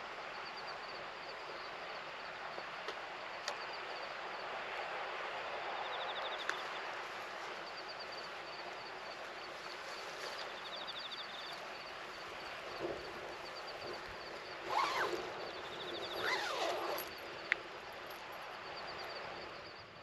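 Outdoor nature ambience: a steady hiss with a high, rapidly pulsing trill repeating throughout, and a few short rising-and-falling calls about three-quarters of the way through.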